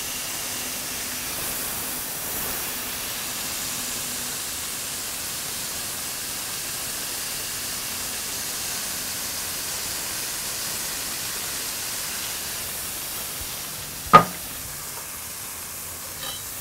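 Smashed ground-chuck burger patties sizzling steadily on a Blackstone griddle, an even hiss of frying. One sharp knock sounds near the end, after which the sizzle is a little quieter.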